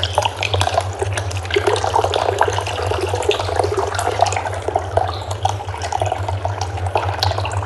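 Electric cat water fountain running: water trickling and splashing in small irregular ticks over a steady low hum.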